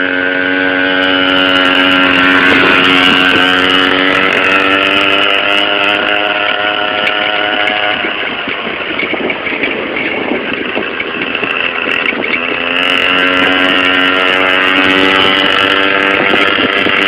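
Small motorbike engine running at high, steady revs at road speed, one held note. For a few seconds in the middle the note breaks up into a rough, noisy rush, then the steady note comes back.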